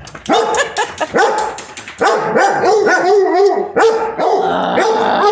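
Pet dogs barking excitedly in a rapid, continuous string of barks.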